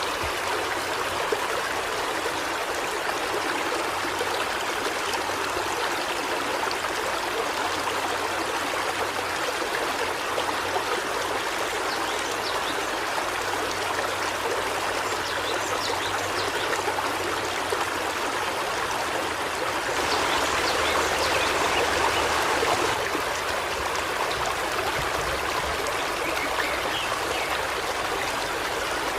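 River water flowing over stones in a steady rushing babble, swelling briefly a little past the middle.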